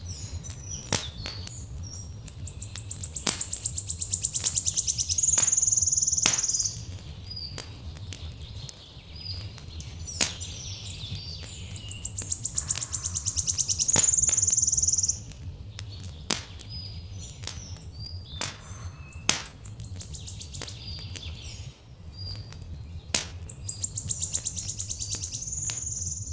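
Songbird repeating a rapid high trill that ends in a buzzy held note, about every ten seconds, three times. Underneath are scattered sharp crackles and pops from a wood fire and a steady low rumble.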